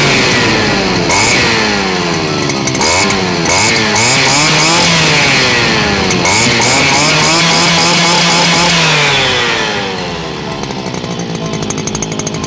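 Stihl FS230 brushcutter's 40.2 cc two-stroke engine running and being revved up and down several times with the throttle. About ten seconds in it drops back to a lower, steadier idle.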